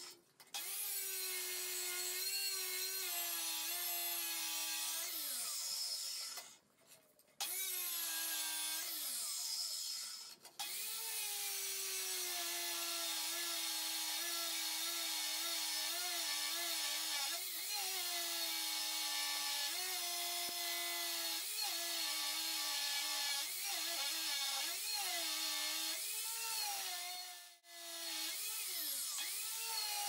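RIDGID abrasive chop saw cutting steel stock with its cut-off wheel: a steady grinding hiss over the motor's hum, whose pitch wavers and dips as the wheel is pressed into the metal. The sound breaks off abruptly a few times.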